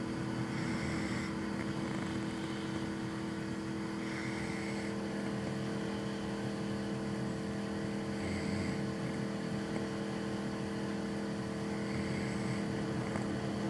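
A man snoring in his sleep, four snores about four seconds apart, over a steady low hum.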